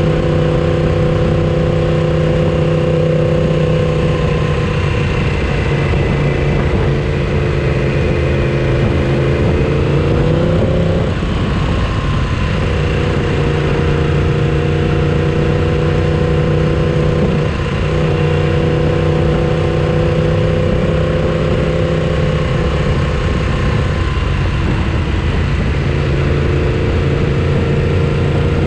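A motorcycle engine running steadily under way over a continuous rushing noise. The engine note rises about ten seconds in, then breaks up for a second or so, and breaks briefly again twice later on.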